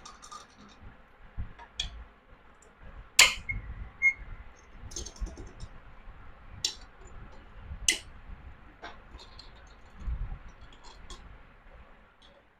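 Scattered metallic clicks and clinks of hand tools and bolts on a Honda CG125 engine as its magneto cover is being unbolted, the sharpest clink about three seconds in.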